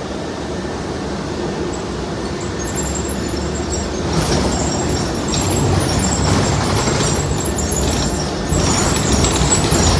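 City transit bus in motion, its running noise growing louder, with a few faint knocks that may be the banging from behind the front axle. The poster asks whether a loose shock absorber bolt is the cause.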